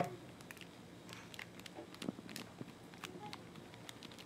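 Faint crinkling and light taps of a seasoning packet as chicken broast powder is poured out onto flour, with a sharper tap at the very start.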